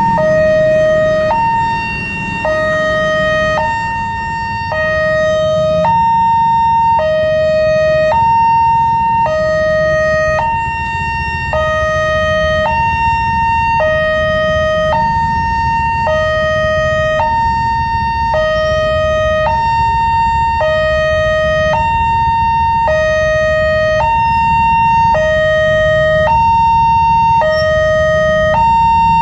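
Wantech railway level-crossing electronic alarm sounding its warning: a higher and a lower tone alternating steadily, each held about three quarters of a second. Low traffic rumble underneath.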